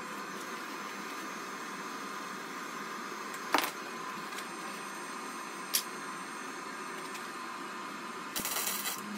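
A steady hiss, a sharp metallic clink about three and a half seconds in and a lighter click about two seconds later, then a brief crackling burst of a flux-core MIG arc near the end: a short tack weld on the steel seat loop.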